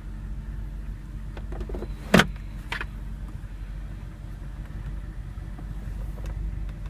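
The 2009 Audi R8's 4.2-litre V8 idling steadily, with a sharp click about two seconds in and a softer one just after.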